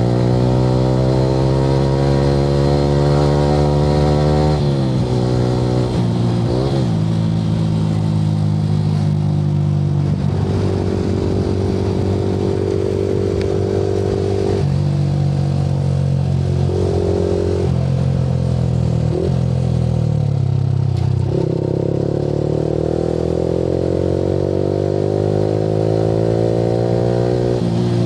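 Yamaha R15 V3's 155 cc single-cylinder engine through an Akrapovic R9 aftermarket exhaust, under way: the revs climb and then fall sharply with a gear change about four seconds in, hold steady for a while mid-way, and climb again before another shift near the end.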